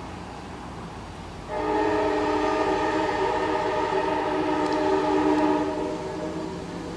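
Diesel locomotive's multi-chime air horn sounding one long blast of about four seconds, a steady chord of several notes held together, over the low rumble of a train pulling away.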